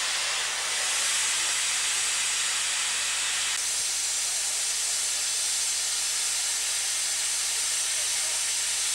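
Steady loud hiss of steam and water blasting from a miniature live-steam locomotive standing over the ash pit, its boiler being blown down. The hiss strengthens about a second in and shifts slightly in tone a few seconds later.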